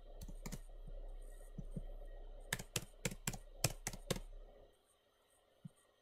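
Typing on a computer keyboard: a scatter of key clicks, quickest from about two and a half to four seconds in, over a faint low hum that cuts out near five seconds in.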